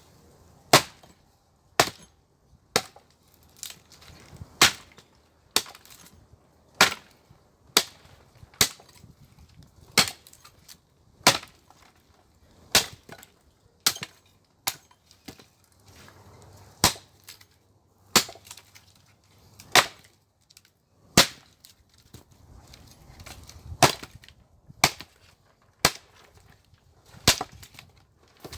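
Firewood being split with hand blows: a sharp wooden strike about once a second, some two dozen in a steady rhythm.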